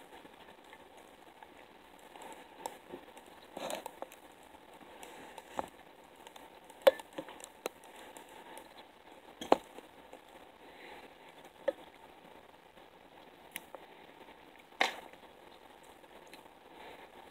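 Fly-tying handling noise: soft rustling of thread and feathers and a few scattered sharp clicks and taps as fingers and a tool work the fly close by, with a brief rustle about four seconds in.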